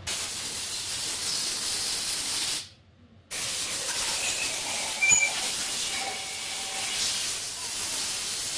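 A steady, loud hissing noise, strongest in the high range, that cuts out for about half a second near the three-second mark and then resumes.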